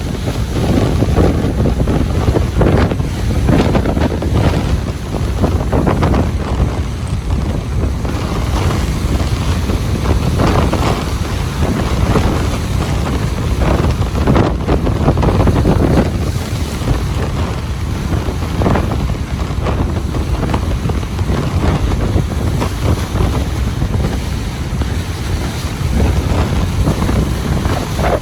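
Ocean surf washing on a beach, a continuous rush that swells and eases, with wind buffeting the microphone.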